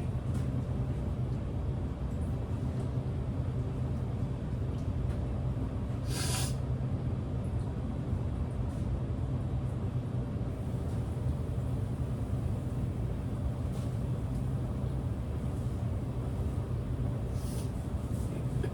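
A steady low hum, with one short, sharp hiss about six seconds in and a fainter one near the end; no sneeze is heard.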